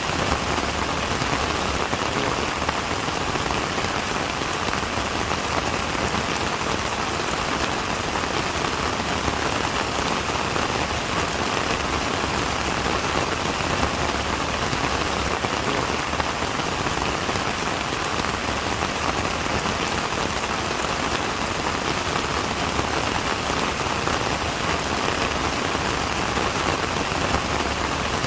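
Steady rain falling, a continuous even patter of raindrops striking a surface.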